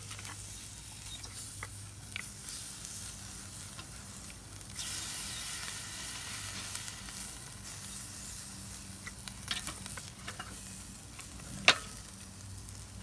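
Raw beef ribs sizzling as they are briefly seared over hot charcoal on a kettle grill. The sizzle grows louder about five seconds in, as the ribs are pressed onto the coals with metal tongs, and there are a few sharp clicks of the tongs against the grate, the loudest near the end.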